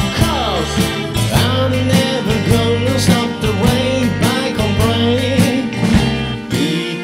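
Guitar-led band music: guitar lines that slide between notes over a bass line and a steady beat.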